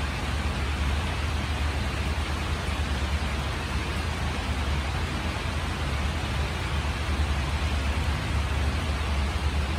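Steady rain falling as an even hiss, with a constant low rumble underneath.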